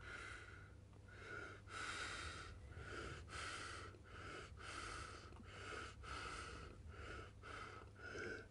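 Faint, quick breathing: a run of short hissy breaths, roughly one every two-thirds of a second, from a man sitting silent before he speaks.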